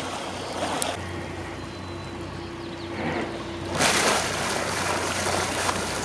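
Scuba exhaust bubbles boiling up and breaking the surface above a boat hull, a loud rushing splash that starts a little past the middle, over a steady low hum.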